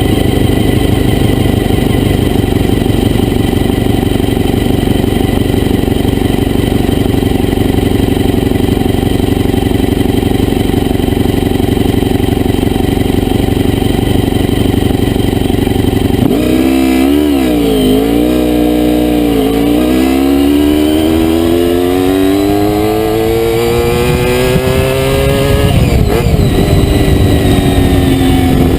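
Honda VFR400R's V4 engine running at a steady pitch for about sixteen seconds, then dipping and wavering before climbing steadily as it accelerates, with a break near the end and a fresh climb.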